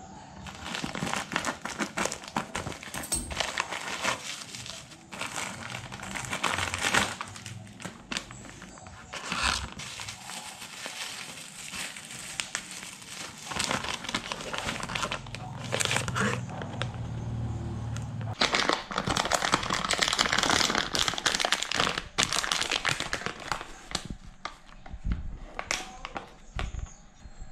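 Plastic packaging being handled: a plastic courier mailer cut open with scissors, then the bubble wrap and clear plastic bags inside crinkled and rustled in irregular handfuls.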